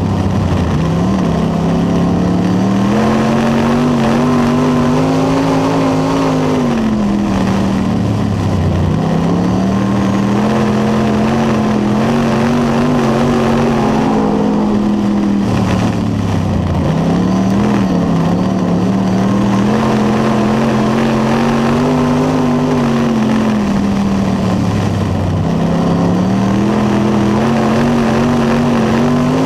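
Dirt late model race car's V8 engine, heard from inside the cockpit at racing speed. Its pitch climbs and falls in repeated cycles, dropping sharply about every eight seconds as the driver lifts off the throttle for the corners and picks it back up down the straights.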